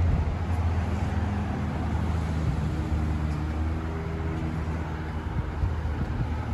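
A motor vehicle engine running close by with a steady low hum. A higher engine note joins it for a couple of seconds in the middle, then fades.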